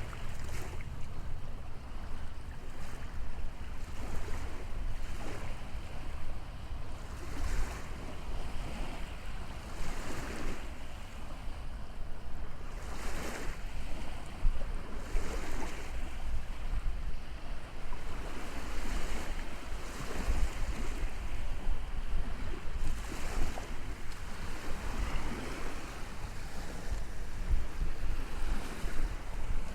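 Sea waves breaking and washing on a shore, the surf swelling and falling every couple of seconds. Wind buffets the microphone with a low rumble underneath.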